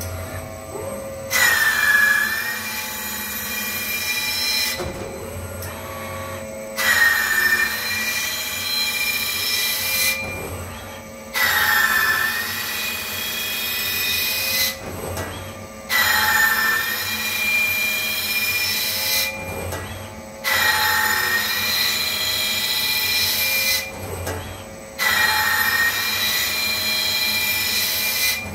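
Spinning abrasive wheel grinding the arms of a metal five-star chair base held by a KUKA robot arm. Six passes, about every four and a half seconds, each starting suddenly with a short falling whine. The wheel runs quieter between passes.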